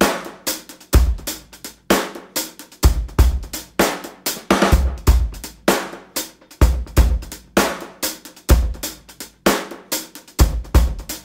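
Background music: a drum-kit beat of kick drum, snare and hi-hat, with a steady thump about once a second.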